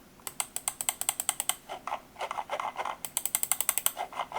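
Gaming mouse scroll wheel turned in quick bursts, its notches ticking about ten times a second with a short pause in between. This is the wheel of an Akko Framer Max, which feels light and odd to turn but has fairly defined steps.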